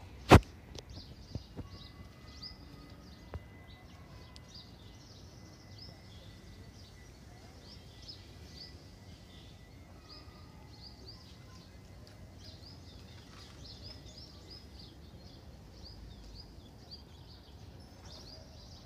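Small birds chirping over and over in quick short calls above a low, steady background hum. There is a single sharp click just after the start.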